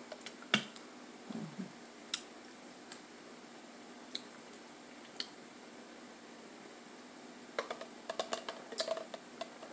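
Scattered small clicks and mouth smacks of someone eating and handling a plastic coffee tumbler, with a closer run of clicks near the end as she sips from it, over a faint steady room hum.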